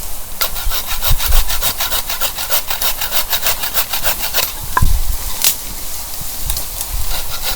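Hand saw cutting through a log to size, with quick, even back-and-forth strokes. A couple of louder knocks come about a second in and again near the five-second mark.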